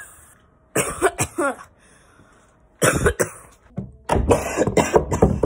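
A girl coughing and gasping in harsh fits, with a few strained voiced gasps about a second in; the coughing comes thickest over the last second and a half.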